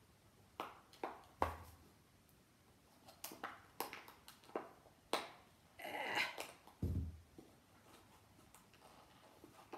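A small sealed surprise packet being worked at with the fingers: a run of sharp crackles and clicks, a longer crinkling rustle about six seconds in, and a couple of dull knocks. The packet is hard to tear open.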